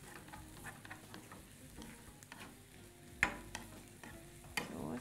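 Grated carrots and onion sizzling faintly in oil in a nonstick frying pan while a spatula stirs them, scraping the pan. The spatula knocks sharply against the pan twice, about three seconds in and again near the end.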